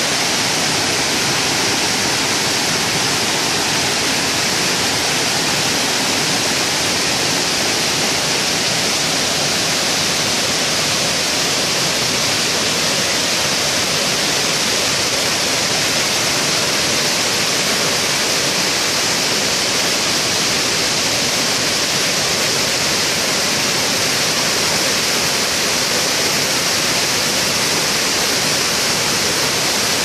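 Waterfall cascading over rocks: a steady, unbroken rush of water.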